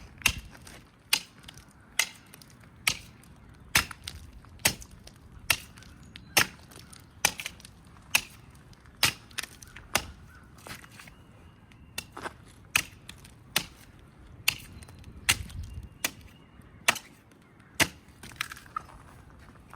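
A hand tool chopping into a tree trunk to girdle it: sharp, even strikes into wood, a little more than one a second, with a brief pause about halfway through.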